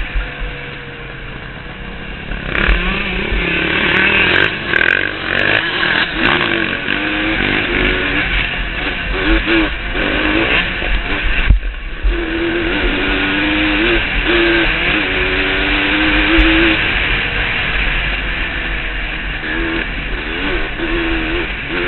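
Yamaha YZ125 two-stroke dirt bike engine under way, its revs rising and falling over and over as the rider works the throttle and gears, with a short dip about halfway. A steady low wind rumble runs underneath on the helmet camera.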